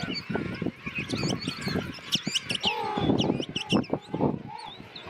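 A king penguin chick sneezing over and over, short sharp bursts, against the din of a king penguin colony: many high sliding whistles and chirps, and lower calls that bend up and down in pitch.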